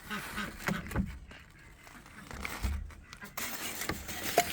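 A coop door being closed by hand: a knock about a second in, then scraping and rustling handling noise and a sharp click near the end.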